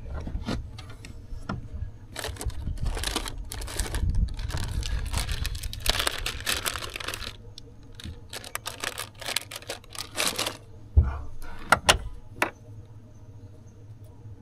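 Handling a plastic pack of soft-plastic worms at a boat's storage compartment: crinkling and rustling plastic in irregular spells, then a few sharp clicks and knocks about two-thirds of the way in.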